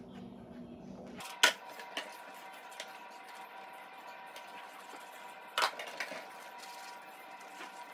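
Dishwashing at a kitchen sink: a sponge scrubbing a plastic container and items being handled, with small scratchy ticks throughout. Two sharp clacks stand out, one about a second and a half in and one just before six seconds.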